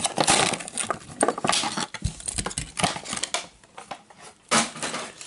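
Hot Wheels blister pack being torn open by hand: the plastic bubble and cardboard card crackling and ripping in a quick run of crackles and clicks, then one sharp click about four and a half seconds in.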